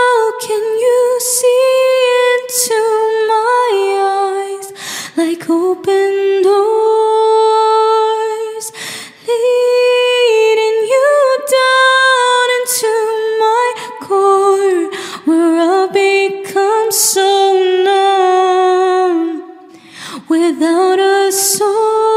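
A woman's solo voice singing long, wordless held notes, with short breaths between phrases and no beat.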